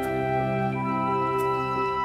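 Calm background music of slow, held chords, the notes shifting about a third of the way in.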